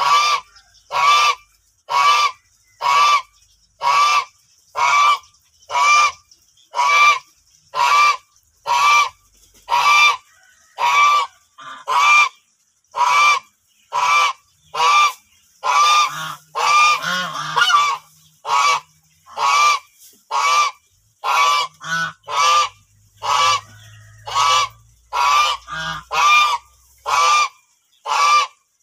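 White domestic geese honking loudly and repeatedly, a short honk about once a second, with a longer, rougher call overlapping the run about halfway through.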